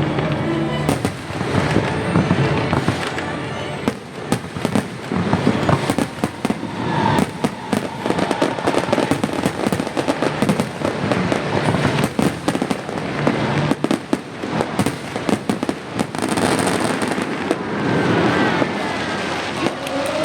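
Aerial fireworks going off in rapid succession: a dense run of bangs and crackling bursts, with music playing underneath.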